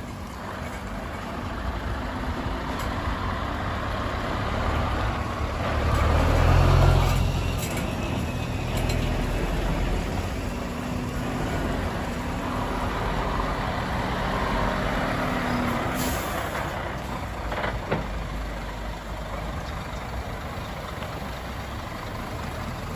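Diesel engines of Scania XT heavy trucks running as the trucks drive past one after another, loudest as one passes close about a quarter of the way through. A brief air hiss sounds about two-thirds of the way in.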